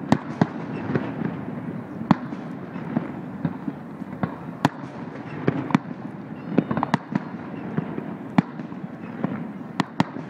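Aerial fireworks shells bursting: irregular sharp bangs every second or two, several of them loud, with smaller pops between, over a steady low background noise.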